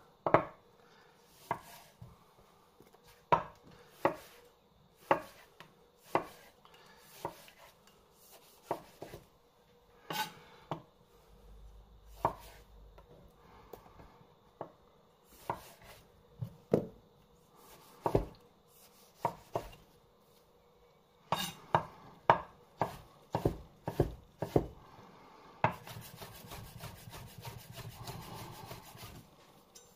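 Kitchen knife chopping tomato on a chopping board: single knocks of the blade spaced about a second apart, coming closer together about two-thirds through, then a run of fast, even strokes near the end.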